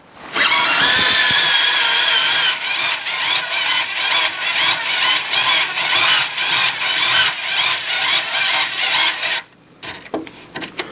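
Wiha speedE II electric screwdriver on its minimum setting, its motor whining steadily as it drives a receptacle's mounting screw into a plastic wall box. The whine wavers slightly and dips a little in pitch early on, then stops suddenly about nine and a half seconds in, followed by a few faint clicks.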